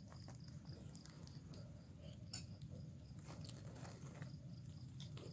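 Faint clicks and small handling noises of someone eating from a bowl and adding sambal to chicken noodles. Behind them a cricket chirps in a high, evenly spaced run.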